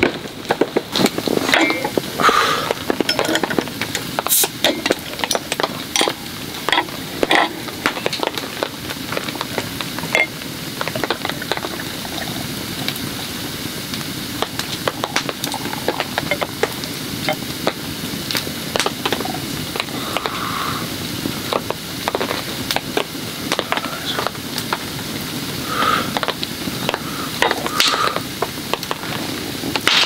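Food sizzling over a campfire, with scattered sharp clicks and brief clinks of metal cookware and utensils.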